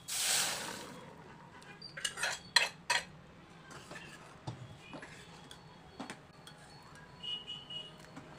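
Cooked dal poured into a steel pot of fried onions, a loud rush for about the first second, then a steel ladle stirring and clinking against the pot, with several sharp clinks about two to three seconds in and lighter ones after.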